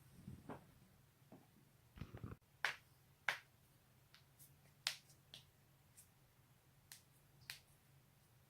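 A series of sharp joint pops and cracks as the neck is twisted, the two loudest about half a second apart a few seconds in, with smaller pops scattered before and after.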